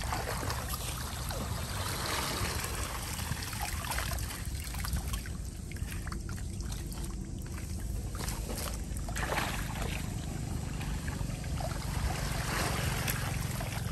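Shallow muddy floodwater sloshing and splashing as a person wades and gropes by hand through grass and mud for fish, with short splashes now and then over a steady low rumble.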